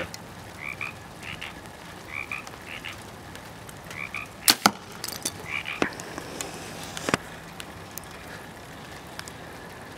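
Frogs calling in short two-note croaks, repeated every second or so. About four and a half seconds in comes one sharp crack, the loudest sound, from the compound bow's test shot at a clay pigeon on the foam target, with a fainter click a few seconds later.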